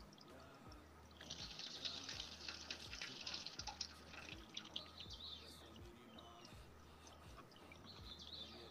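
Scissors snipping through dry corn husk: a quick run of crisp, crunchy cuts for about three seconds, starting about a second in, then fainter rustling as the husk is handled.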